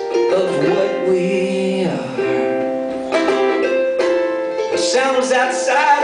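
Live song: a ukulele strummed with a man singing along into the microphone.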